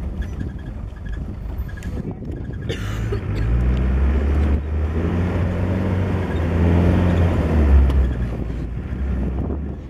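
Open safari game-drive vehicle's engine pulling along a sandy dirt track, with tyre and wind rumble. The engine drone grows louder about three and a half seconds in, is loudest near eight seconds, then eases off.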